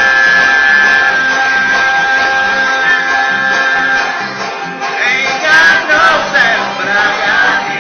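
Acoustic bluegrass string band of banjo, guitar, mandolin and bass playing, with a singer holding one long note for about four seconds and then singing on.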